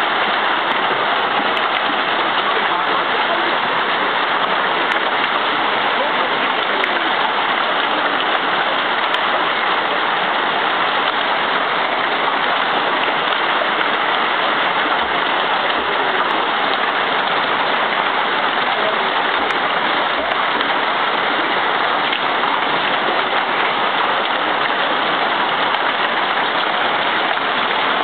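Heavy hailstorm: hail and rain pelting down hard in a dense, steady noise that never lets up.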